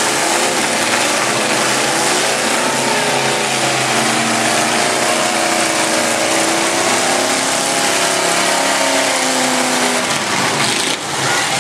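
Engines of demolition derby cars running and revving hard, their pitch slowly rising and falling over a constant loud din.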